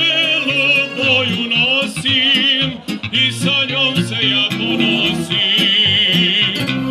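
Live band playing a Serbian folk song on accordion and electronic keyboards: a fast lead melody with heavy vibrato and a long held, wavering note near the end, over steady accompaniment.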